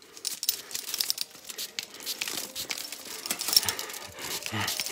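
Dense crinkling and crackling, a rapid string of sharp little crackles, as a pizza cutter is worked in a mock torture scene.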